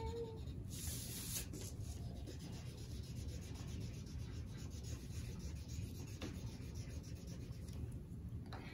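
Felt-tip marker rubbing back and forth on paper as an area is colored in, with a brief scratchier stretch about a second in.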